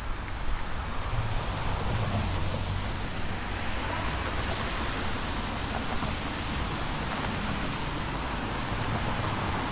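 Steady rushing vehicle noise with a low hum underneath, swelling about four seconds in and again near the end.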